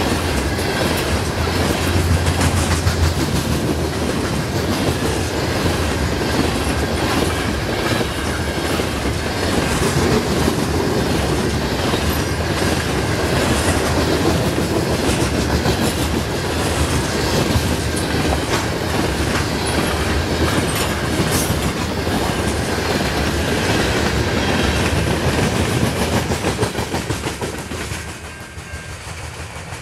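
Loaded covered hopper cars of a potash freight train rolling past: a steady rumble of steel wheels and a clickety-clack over rail joints, with a thin high ring over it. The sound falls away near the end as the last car passes.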